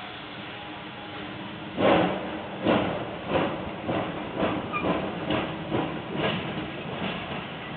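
Exhaust chuffs of No. 18, an ALCO 2-8-0 Consolidation steam locomotive, starting to move. A fading steam hiss gives way about two seconds in to a loud first chuff, then a run of chuffs that come steadily closer together as the engine picks up speed.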